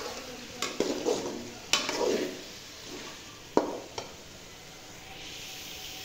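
Metal spoon stirring chicken pieces frying in oil and spice masala in a metal pan. It knocks and scrapes against the pan about five times in the first four seconds, over a steady sizzle.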